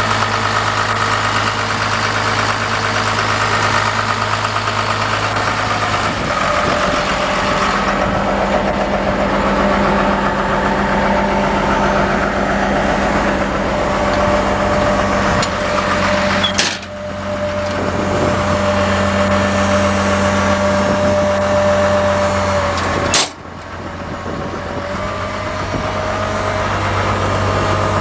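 Komatsu D41P-6 crawler dozer's diesel engine idling steadily. Two sharp clicks a few seconds apart in the second half, each followed by a brief dip in level.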